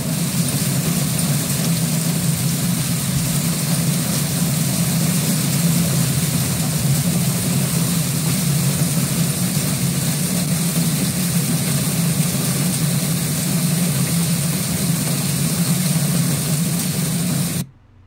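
Heavy hailstorm: a dense, steady rush of hailstones striking the ground and roofs. It cuts off suddenly just before the end.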